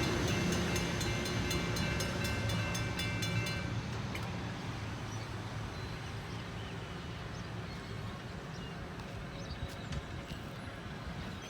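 A train passing by, its rumble fading steadily as it moves away. A rapid, even clicking runs over it and stops about four seconds in.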